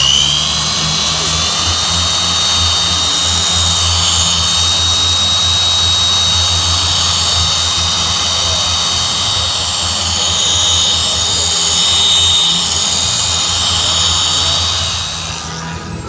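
Machine polisher with a microfiber pad running steadily on car clear coat, polishing out 2000-grit sanding marks. It makes a high steady whine over a low pulsing hum, then spins down near the end.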